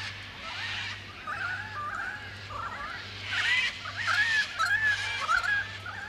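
Several birds calling together, a chorus of overlapping chirps and whistled notes, with louder, harsher calling from about three seconds in.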